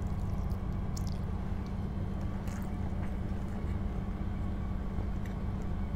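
Steady low background hum, with a few faint, soft clicks of chewing as a mouthful of chicken and rice is eaten by hand.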